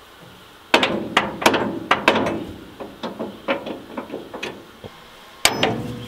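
Hammer blows on the steel of an old forage harvester's corn head: a quick run of about a dozen strikes that grow weaker, then one more hard blow near the end, as parts are knocked loose during disassembly.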